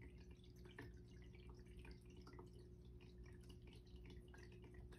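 Faint dripping and trickling of a pet water fountain, with a steady low hum beneath it.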